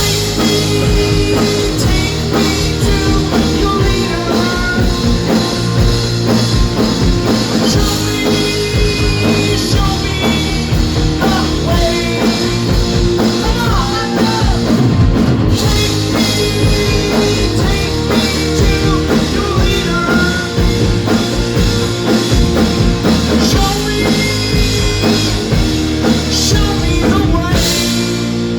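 Rock band playing live, with drum kit and guitars, coming in at full volume after a brief pause and carrying on steadily.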